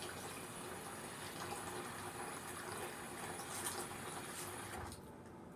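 Hot water running steadily from a tap into the sink, shut off near the end.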